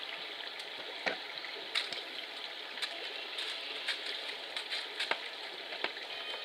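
A steady hiss of background noise with a handful of short, irregular clicks and taps, which fit a Himalayan tahr's hooves stepping on concrete and dry leaves.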